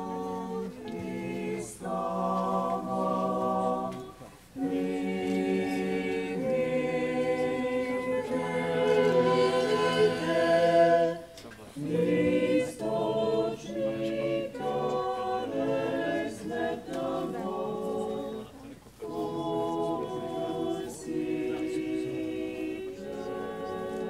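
Unaccompanied church choir singing Orthodox liturgical chant in long phrases, with short pauses between them about 4, 11 and 19 seconds in.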